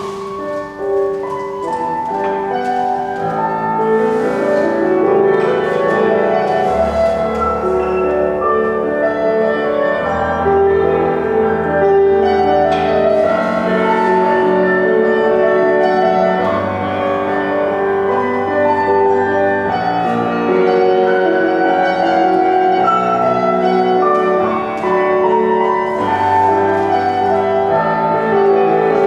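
Classical instrumental music with a prominent piano, playing continuously at a steady level.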